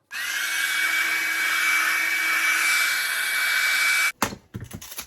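Handheld hair dryer running with a steady whistle for about four seconds, then switched off suddenly, followed by a few knocks as it is handled or set down.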